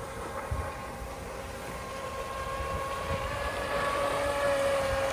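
Pro Boat Formula Fastech RC speedboat's water-cooled brushless motor (2000 kV on 4S) running flat out across the water with a steady whine. It grows louder and rises slightly in pitch around four seconds in, with wind buffeting the microphone.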